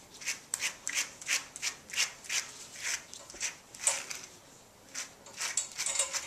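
A grooming brush stroked briskly through a dog's long coat dusted with cleaning powder, several short brushing strokes a second. They stop for about a second a little past the middle, then start again, quicker, near the end.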